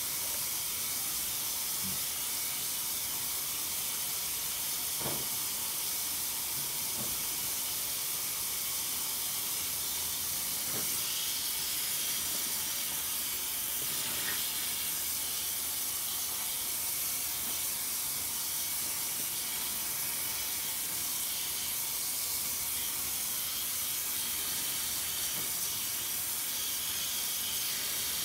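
Faucet water running steadily into a sink full of soap suds as soaked sponges are squeezed and rinsed under it by hand, with a few faint soft squishes over the hiss of the water.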